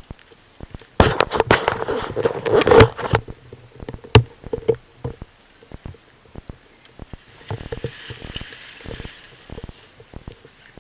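Close rustling and crackling handling noise as gloved hands gather up paraglider lines among brushing rapeseed stalks. It is loudest for about two seconds from about a second in, with a sharp knock about four seconds in and a softer rustle later. The paramotor engine is not running.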